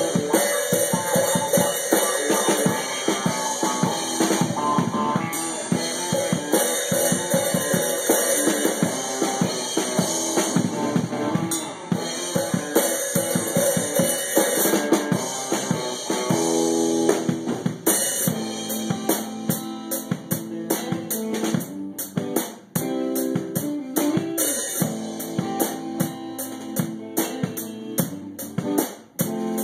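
Drum kit being played, with bass drum, snare and cymbal strikes, along with guitar music.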